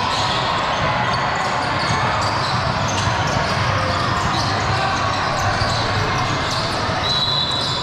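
Basketball game play in a gym: the ball dribbling on the court under a steady din of spectators, with many short high squeaks throughout. A steady high tone starts near the end.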